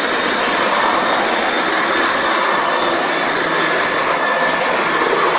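Loud, steady rush of highway traffic heard from a moving vehicle: wind, tyre and engine noise with no sudden impacts.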